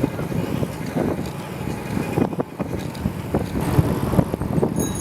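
Bicycle being ridden over city pavement: irregular rattling and knocking from the bike over the road surface, with wind on the microphone.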